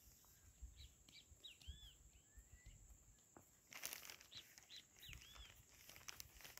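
Near silence outdoors with faint bird chirps: short calls rising and falling in pitch, in two runs a few seconds apart, over a light low rumble.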